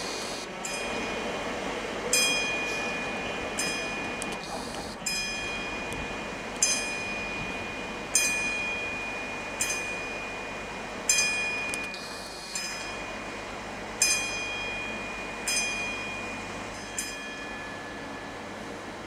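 Passenger train pulling away with a low rumble that slowly fades. Over it, a bell-like metallic strike rings out about every one and a half seconds, each ring dying away before the next.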